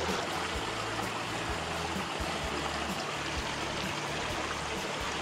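Small, shallow mountain creek running over rocks: a steady rush of flowing water.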